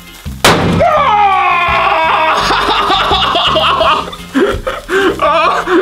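A single sharp bang about half a second in as a hydrogen–oxygen gas mix inside a chocolate Easter egg ignites and blows it apart. A man's long yell follows at once, then laughter, over background music.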